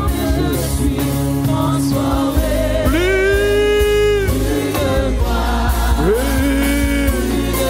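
Gospel worship music: sung vocals holding long notes, with backing voices, over keyboard and drums.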